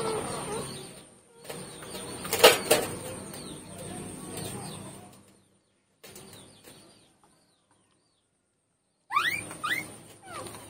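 Newborn puppies squeaking and whimpering while they nurse, with rustling and a single sharp knock about two and a half seconds in. A couple of quick rising squeals come near the end.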